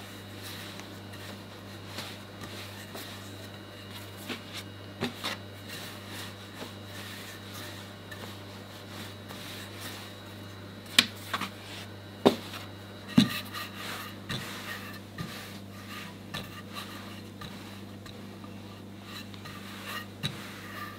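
Wooden rolling pin rolling out pierogi dough on a floured wooden board: soft rubbing with scattered light knocks, and three sharper knocks a little past the middle. A steady low hum runs underneath.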